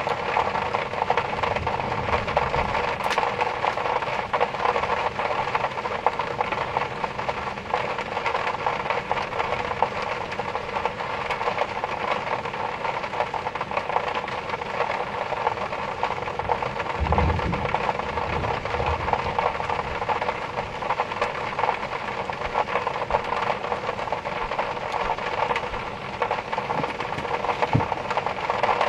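Steady heavy rain, with low rumbles of thunder about two-thirds of the way through and again near the end.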